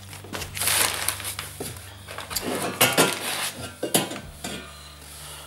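Mild-steel exhaust pipe sections being lifted out of a cardboard box, knocking and clinking against each other, with rustling of the box and packing in between.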